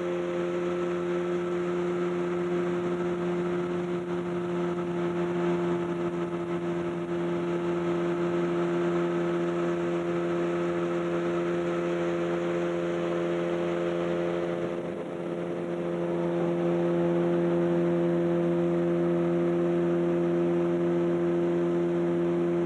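Fishing boat's motor running steadily under way. It dips briefly about fifteen seconds in, then runs on slightly louder.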